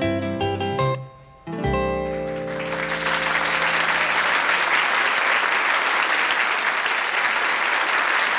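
Electric guitar and dance band finishing a number: a brief break about a second in, then a final held chord that fades. Studio audience applause follows and carries on steadily.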